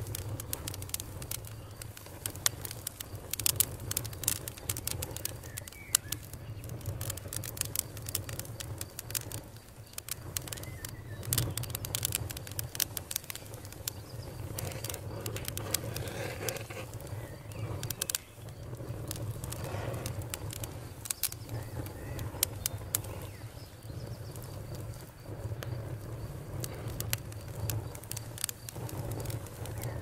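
Wood campfire crackling, with many irregular sharp pops and snaps over a low steady rumble of burning. Birds chirp faintly in the background.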